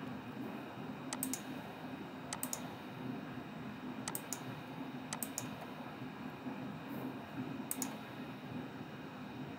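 Computer mouse clicks, about five quick double clicks spread over several seconds, over a steady low hum.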